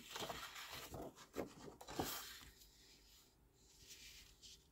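Sheets of patterned designer paper rustling and sliding against each other as they are handled and turned over, with a couple of sharper crinkles about two seconds in, then only faint handling.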